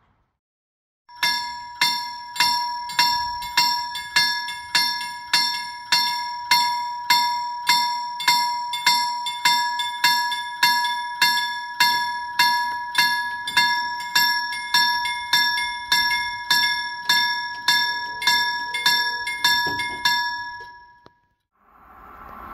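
Railway level-crossing warning bell ringing in steady strokes about twice a second, each ringing tone dying away between strokes. It starts about a second in and stops abruptly near the end. The rising noise of an approaching train follows.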